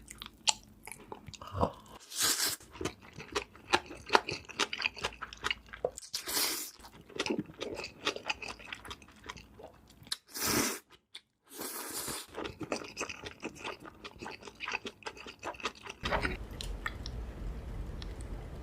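Close-miked ASMR eating: crunchy bites and chewing, with many sharp crackles. A low hum comes in near the end.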